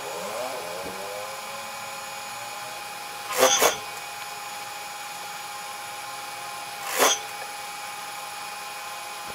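Industrial sewing machine motor humming steadily with a whine that rises in pitch at the start, broken by two short bursts of stitching, one about a third of the way in and one about three quarters in.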